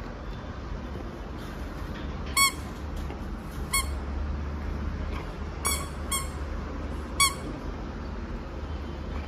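Squeaker inside a green rubber bone toy squeaking five times in short, high single-pitch squeaks as a Labrador chews it, the squeaks irregularly spaced, two of them close together.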